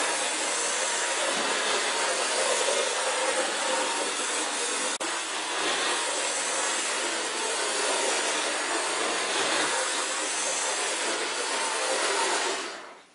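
Model steam locomotive's electric motor and wheels running on model railway track laid on a bare hardboard base: a steady whirring noise, briefly broken about five seconds in, that cuts off near the end as the locomotive stops.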